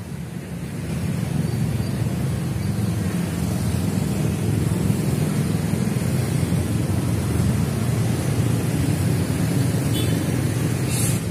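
Steady low rumble of road traffic, with a brief high click near the end.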